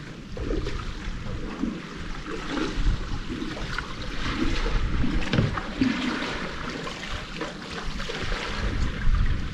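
Water splashing and lapping around a kayak as it is paddled, in irregular swishes, with wind rumbling on the microphone.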